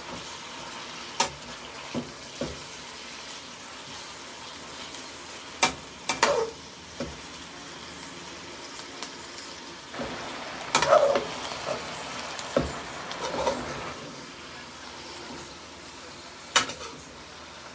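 Sliced bell peppers and onions sizzling in a frying pan as they are stirred, with a utensil now and then knocking and scraping against the pan; the loudest clatter comes about eleven seconds in.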